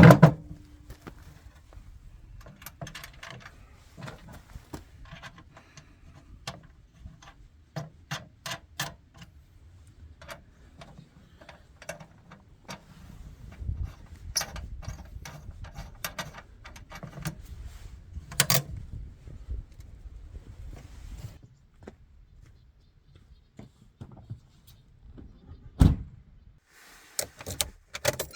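Scattered clicks, knocks and thuds of gear and doors being handled, with one loud thump near the end.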